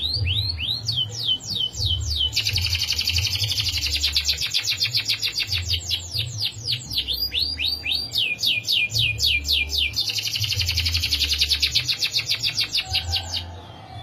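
Domestic canary singing: runs of quick falling whistled notes broken by two long, very fast trills (the rolls, 'ngerol'), the longer lasting about four seconds. The song stops near the end, over a low uneven rumble in the background.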